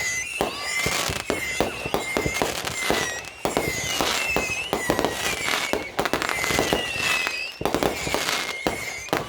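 Fireworks going off in quick succession: a continuous run of bangs and crackling pops, with high whistling tones coming and going about once a second.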